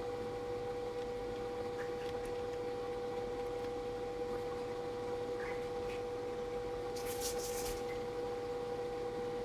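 A steady background hum of two held tones over faint hiss, with a short burst of high hiss about seven seconds in.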